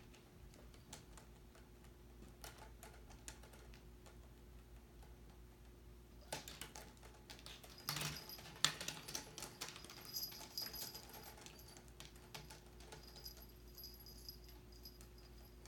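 Two cats playing on a bed: faint rustling and soft patter of paws and bodies on the bedspread, with a flurry of clicks and clatter about halfway through as one cat bursts out from behind the vertical window blinds and pounces, the loudest a single sharp tap. After that, quieter rustling as the pair wrestle.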